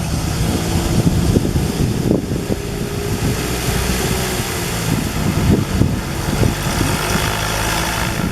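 Aircraft engine running with a steady high hiss, with wind buffeting the microphone.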